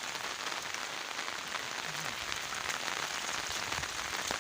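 Heavy rain falling steadily and pattering on hard surfaces, a dense hiss dotted with individual drop splashes.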